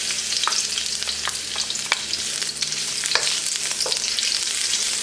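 Chopped vegetables sizzling in hot oil in a wok, a steady hiss, while a wooden spatula stirs them with scattered scrapes and taps against the pan.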